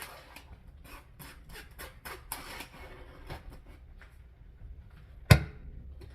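Kitchen utensils working against containers: a quick run of clicks and short scrapes while the juice is stirred and strained, then one sharp knock about five seconds in.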